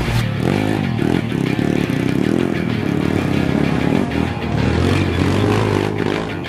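Dirt bike engines revving up and down as the bikes climb a muddy trail, heard under background music.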